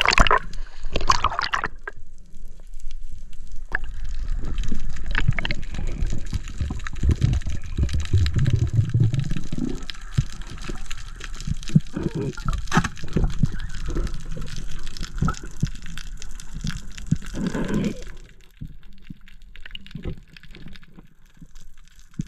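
Underwater sound picked up through a camera's waterproof housing: gurgling, bubbling water with many small clicks and a low rumble. It gets clearly quieter about eighteen seconds in.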